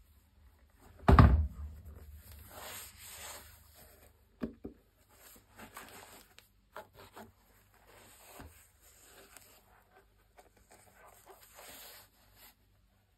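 Sneakers handled by gloved hands: a thump about a second in as a shoe is knocked or lifted off the table, then gloves rubbing and rustling over the shoe's synthetic leather upper, with a few light taps.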